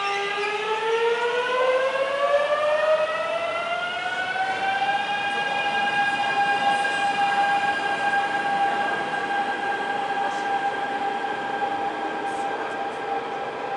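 Flytoget airport express electric train pulling away, its traction motors whining with a pitch that rises for about five seconds as it accelerates, then levels off into a steady tone.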